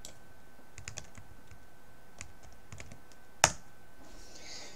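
Password being typed on a computer keyboard: scattered light key clicks, then one sharp, louder click about three and a half seconds in as the login is submitted. A faint steady high tone runs underneath.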